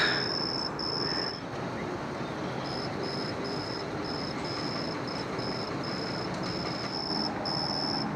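Crickets chirping in a steady run of high-pitched pulses, several a second, with a brief pause about two seconds in, over the low steady noise of a car on the road.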